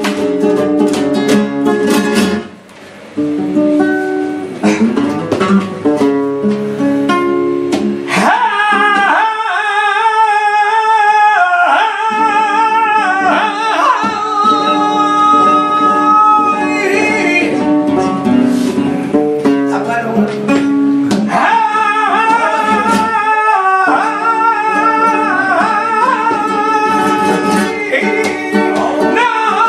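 Flamenco seguiriya: a flamenco guitar with a capo is strummed and plucked, dropping briefly quiet about two and a half seconds in. From about eight seconds in, a man's voice sings long, wavering, ornamented cante lines over it.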